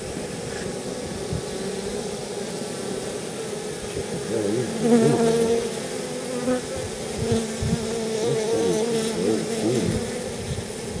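Honeybees buzzing around an opened hive: a steady hum with single bees passing close, their pitch wavering, getting louder from about four seconds in.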